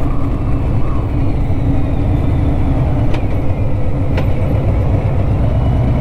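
Motorcycle engine running steadily at cruising speed. Two short, sharp clicks come about a second apart near the middle.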